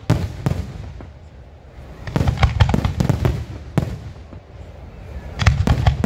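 Aerial fireworks shells bursting in a display: a couple of sharp bangs at the start, a rapid run of reports from about two seconds in, a short lull, then another quick cluster of bangs near the end.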